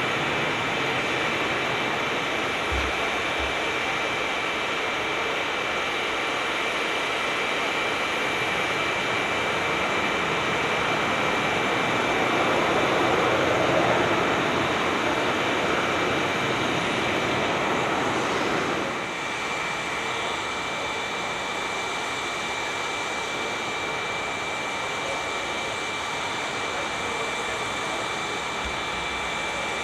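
Aircraft engines running in a steady rush of noise with a thin high whine held throughout. It swells for several seconds past the middle, then drops suddenly about two-thirds of the way through.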